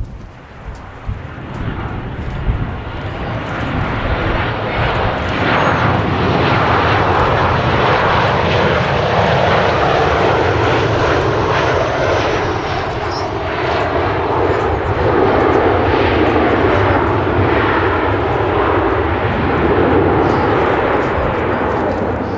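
Jet airliner landing: engine noise swells over the first few seconds into a loud, steady roar that carries on through touchdown and the roll-out on the runway.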